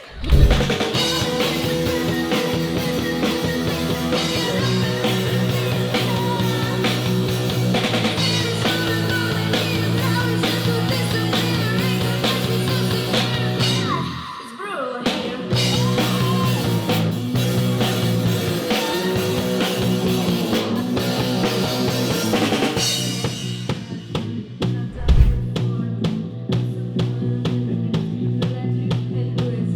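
Rock music with a drum kit and bass, with a short break about halfway. Near the end it turns into a run of evenly spaced drum hits, then stops.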